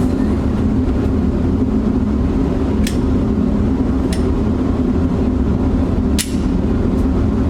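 Shooting-range background: a steady low rumble with three sharp cracks, about three, four and six seconds in.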